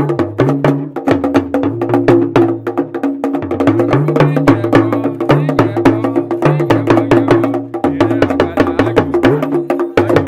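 Background music with quick, dense wood-block-like percussion clicks, a bass line stepping between a few notes, and a steady held chord.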